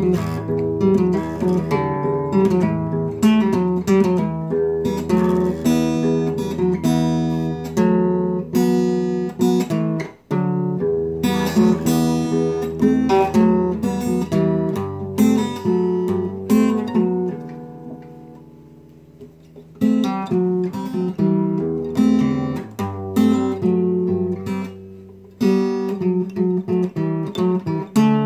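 Acoustic guitar strummed in a repeating chord pattern. It breaks off briefly about ten seconds in, and past the middle one chord is left ringing and dying away for a couple of seconds before the strumming picks up again.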